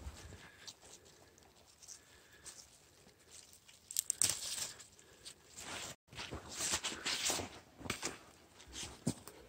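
Gloved hand rustling through dry leaf litter and tearing wild greens off at the stem, in irregular crackly bursts; the loudest come about four seconds in and again just after a brief dropout near the middle.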